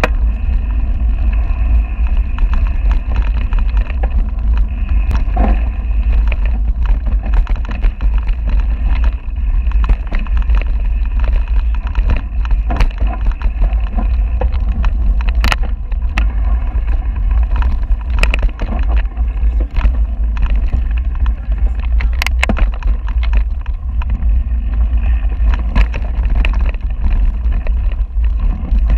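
Mountain bike descending a dirt trail at speed: steady wind buffeting on the handlebar camera's microphone over the rush of tyres on loose dirt, with scattered sharp knocks and rattles as the bike hits bumps.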